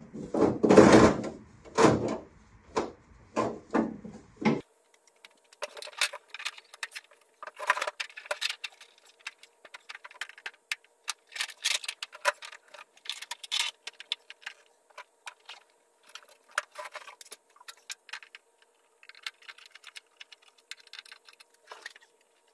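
Cloth headliner fabric rustling and crackling as it is pulled and smoothed by hand against the car's roof, with many small sharp clicks. A run of loud, close rustling strokes in the first few seconds stops abruptly, and a faint steady hum runs under the rest.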